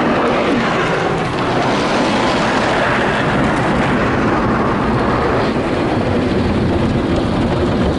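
Belanger FreeStyler automatic car wash spraying water over the car, heard from inside the cabin as a loud, steady rush.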